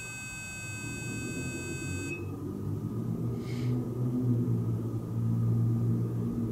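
Electronic tone from a small ghost-hunting sensor device, a steady high-pitched whine that cuts off suddenly about two seconds in, as the device's green light goes out. A low steady hum runs underneath and grows louder toward the end.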